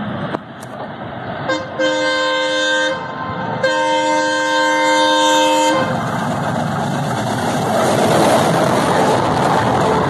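Twin WDM3A ALCO diesel locomotives sounding their horn, a chord of several tones, twice: a short blast and then a longer one of about two seconds, as they approach at about 116 km/h. Then a loud rush and rumble as the locomotives and coaches pass at speed.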